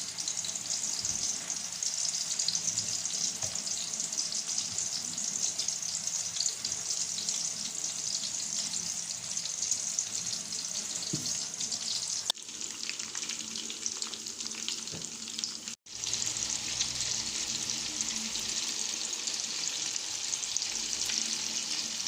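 Meatballs of minced meat and rice frying in hot oil in a pan, a steady sizzle, with a brief break about 16 seconds in.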